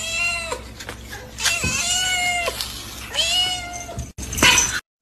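Domestic cat meowing three times, each a long drawn-out meow about a second apart. Near the end comes a brief loud noise, then the sound cuts off suddenly.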